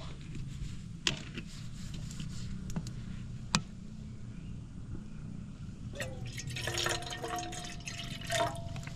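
Water being poured or sloshed in a container, loudest about six to eight and a half seconds in, with two sharp clicks earlier and a steady low hum underneath.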